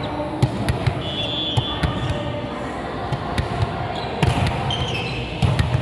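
Volleyballs thudding as they bounce on the hard gym floor and are hit, a string of irregular sharp impacts over the din of a large indoor hall, with short high sneaker squeaks about a second in and again near the end.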